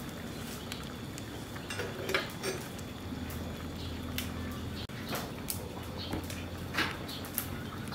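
A pot of soup simmering, with scattered light clicks and pops. About five seconds in, a metal ladle clinks and scrapes in a plastic basket of fresh leaves.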